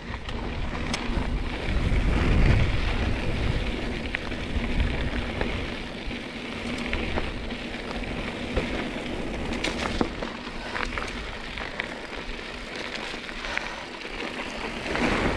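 Mountain bike rolling along a dirt trail: a steady crackle of tyres on dirt and gravel, with wind rumbling on the microphone, strongest in the first few seconds, and a few sharp clicks and knocks from the bike over rough ground.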